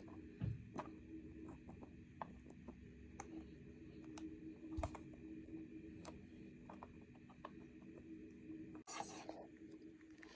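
Faint small clicks and scratching from handling rubber bands with a plastic bracelet-making hook and loom, with a couple of soft thumps, over a steady low hum.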